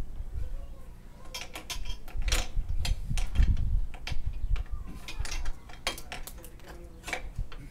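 Hand work on a motorcycle's exhaust header pipe: scattered metallic clicks and clinks of a spanner and the pipe, with dull low thumps from handling the pipe around the middle.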